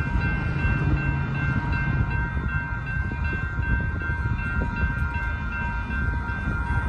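Railroad crossing bell ringing steadily as the crossing gates rise, over a low rumble from the receding train and passing road traffic.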